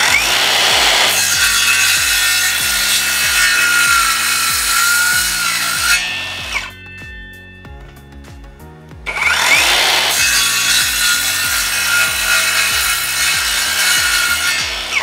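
Full-size 6.5-inch cordless circular saw cutting through a rubberwood board twice: each cut opens with a rising whine as the blade spins up, then runs steadily with a high motor whine over the cutting noise. The first cut lasts about six seconds, and the second starts after a pause of about three. Light background music plays underneath.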